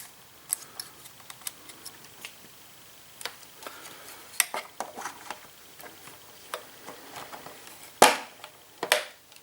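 Hard plastic toy figure and stand being handled: scattered light clicks and taps as the parts are moved and fitted onto the display stand, with a louder sharp snap about eight seconds in and another just before the end.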